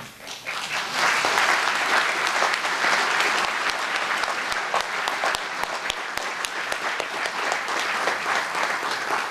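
Audience applauding. The applause swells within the first second, then carries on steadily, with single claps standing out more as it thins toward the end.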